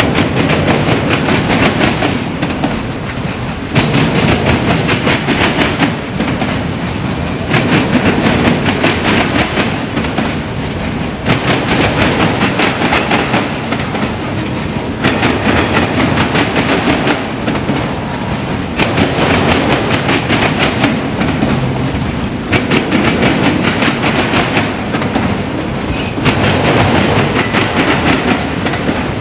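Freight train rolling past close by, its steel wheels clicking over the rail joints. The loudness swells and eases about every four seconds as each car goes by, with a faint, brief high wheel squeal early on.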